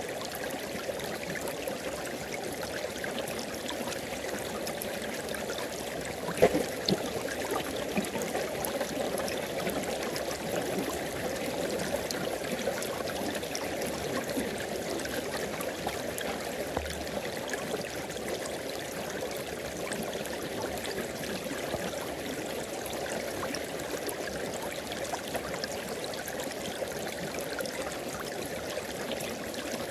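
Tropical river flowing steadily over rocks, a continuous rushing and babbling of water, with a brief louder splash or knock about six seconds in.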